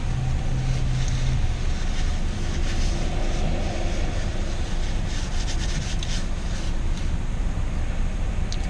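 Steady low rumble inside a parked car's cabin with the engine idling, with faint chewing and small rubbing and ticking noises.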